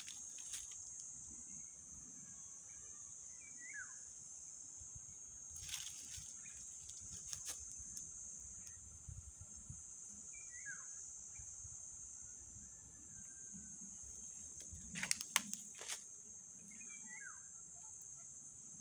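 A steady high-pitched drone of insects, with a bird's short falling call heard three times about six to seven seconds apart. A few brief sharp knocks come near the middle and in a cluster about three quarters through.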